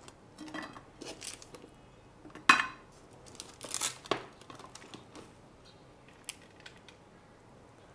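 Hard, set peanut-jaggery chikki pieces being lifted off butter paper and laid on a plate: paper crinkling with scattered clicks and knocks of the pieces against the plate, the loudest knock about two and a half seconds in.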